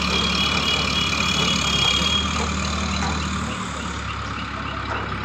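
Mobile crane's diesel engine running steadily at a low hum, easing off about four seconds in. A faint high chirping repeats about three times a second over the second half.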